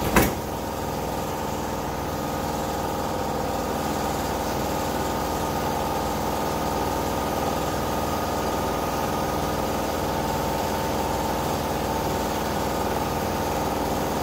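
A single sharp knock just after the start, then a steady hum of running machinery with several steady tones, unchanging throughout.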